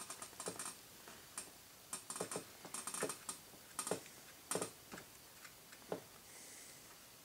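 Irregular light clicks and taps, some in quick runs, as a small paintbrush dabs and strokes epoxy onto the wooden firewall of a model airplane, with hand handling of the fuselage.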